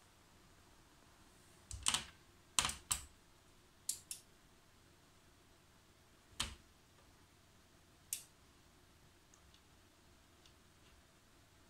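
Push-buttons on a Hantek DSO5202P digital oscilloscope's front panel being pressed: about seven short, sharp clicks, some in quick pairs, then a few faint ticks near the end.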